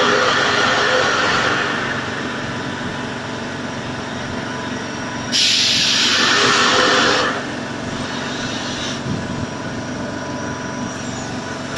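Air compressor running steadily, with a louder hiss that starts suddenly about five seconds in and lasts about two seconds.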